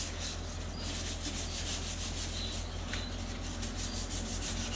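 Fine 400-grit sandpaper rubbed by hand over a sealed wooden drawer front in quick back-and-forth strokes, smoothing the dried sealer coat before the next coat goes on.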